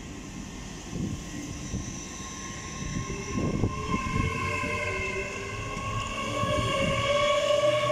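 Class 802 bi-mode express train pulling away from the platform, its traction equipment whining in several tones that climb slowly in pitch as it accelerates, over a low rumble of wheels and running gear. It grows louder toward the end.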